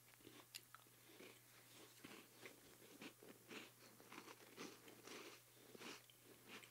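Faint biting and chewing of crisp chocolate-coated Thin Mint cookies: a string of small, irregular crunches.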